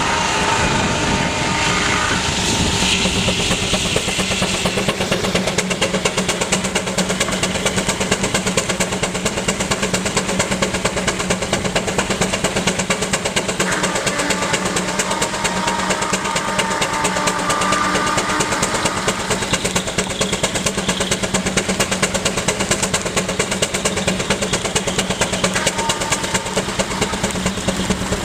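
Advance Rumley steam traction engine running under belt drive to a sawmill, its exhaust beating fast and evenly, mixed with the steady hum of the sawmill machinery. Higher tones come and go over the top.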